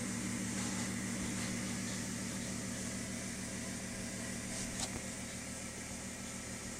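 Steady low hum with an even hiss over it, the constant background noise of a small room, with one faint click about five seconds in.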